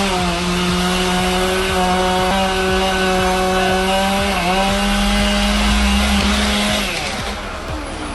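Chainsaw running steadily at high speed, its pitch dipping briefly twice, then cutting off near the end.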